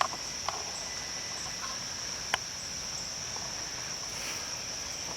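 Steady high-pitched chorus of insects in summer woods, with a few short sharp clicks, one near the start, one about half a second in and one a little past two seconds.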